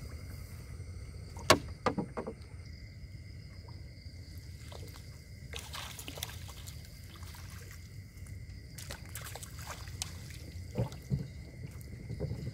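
Water sloshing and trickling as a hand scoop net is swept through the water and lifted to catch fish. There is a sharp knock about a second and a half in, followed by a few smaller knocks.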